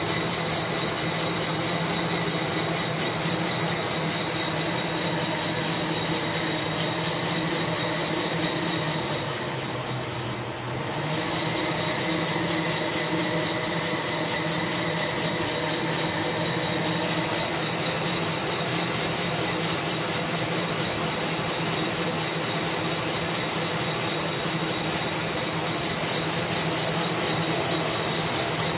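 Fracino Roastilino hot-air coffee roaster running: a steady rush from its blower, with the beans rattling as they tumble in the roast chamber. It dips quieter for a moment about ten seconds in.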